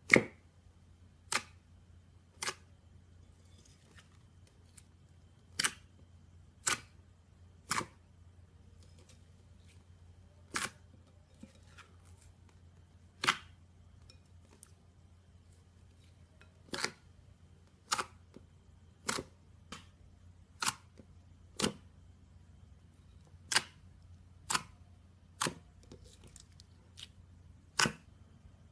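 Slime being pressed and poked, giving sharp clicking pops at uneven intervals, about twenty in all. The first pop is the loudest.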